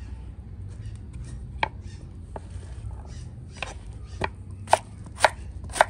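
Kitchen knife chopping tender round calabacita squash on a wooden cutting board: about seven sharp knocks of the blade through the squash onto the board, sparse at first, then about twice a second near the end.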